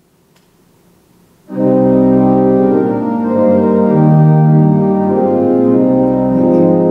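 Church organ entering about a second and a half in with loud, sustained chords whose notes shift as the music moves on.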